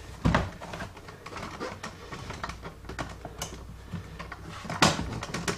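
Plastic center console of a 2005–2009 Ford Mustang being worked loose by hand, rattling and clicking, with a louder knock about a quarter second in and another near the end.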